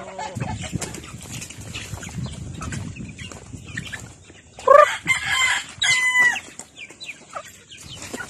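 Flock of native chickens clucking, with two louder pitched calls from a bird about halfway through.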